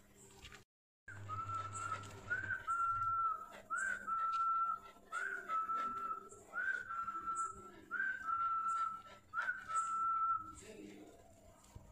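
A person whistling to call street dogs to food: seven whistles at a steady pace, each a quick upward flick followed by a held note about a second long.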